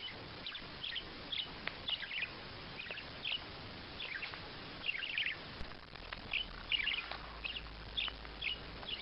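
A bird chirping repeatedly: short, high chirps about twice a second, with a brief pause around the middle.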